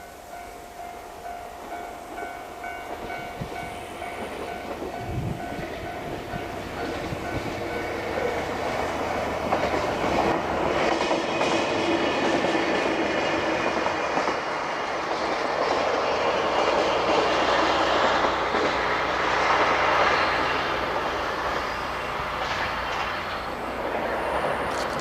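Diesel train approaching and running past, its noise building for about twenty seconds and then easing off, with wheels clacking over rail joints. A repeating ringing tone sounds for the first seven seconds or so.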